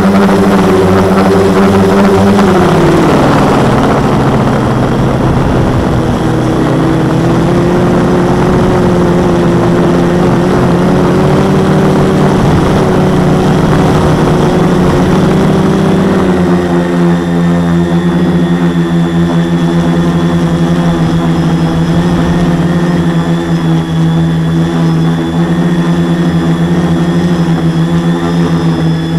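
Four Multistar 2212 920kv brushless motors spinning 10x4.5 propellers on a 450 quadcopter, heard up close from the onboard camera as a loud, steady whine. The pitch drops about three seconds in as the throttle eases off for a descent, then holds steady through low passes over the grass.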